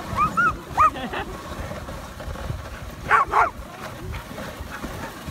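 Sled dogs in harness barking and yipping as they run: several short yips in the first second, then two louder barks about three seconds in.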